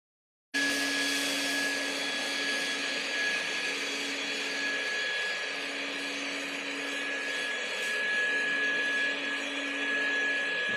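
Corded electric fogger sprayer running: a steady motor hum and whine with a hiss of spray, starting abruptly about half a second in.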